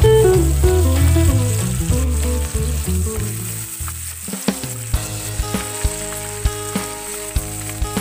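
Whole trout sizzling as they fry in oil in a pan, under background music. The music dips about halfway through and comes back with sustained notes and a regular beat.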